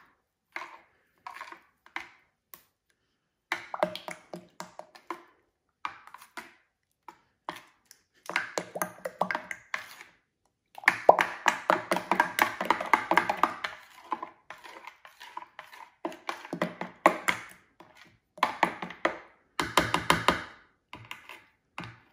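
A spoon stirring salt and glitter into a bowl of shampoo and dish soap, clicking and scraping against the glass bowl in bursts of quick strokes with short pauses between. The salt is thickening the soaps into slime.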